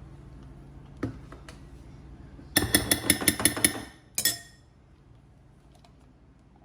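A spoon tapped rapidly against the edge of a bowl, about eight quick clinks in just over a second and then one more, knocking scooped food off the spoon. A single knock comes about a second in.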